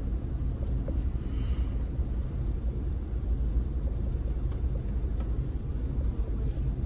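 Steady low rumble of a car driving through shallow floodwater, heard from inside the cabin.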